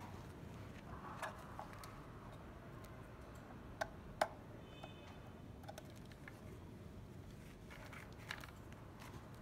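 Cables being handled and a connector pushed into the socket of a UV LED spot-light controller box, with two sharp plastic clicks about four seconds in as the plug goes in.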